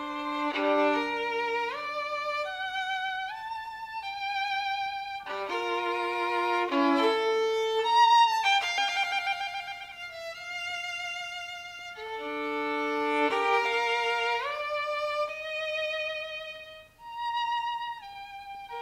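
Background music: a violin playing a melody with vibrato and notes that slide from one to the next.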